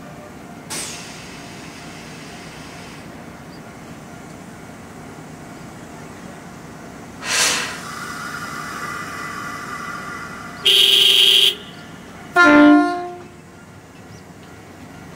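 Electric train at a platform before departure: two short hisses of compressed air, about a second in and halfway through, then two short horn blasts near the end, the first steady and higher, the second lower and falling away.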